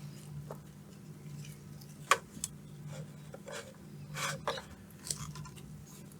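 Scattered light clicks and scrapes of a small hand tool working at a circuit board, with a sharp click about two seconds in and a short cluster of clicks just past four seconds, over a steady low hum.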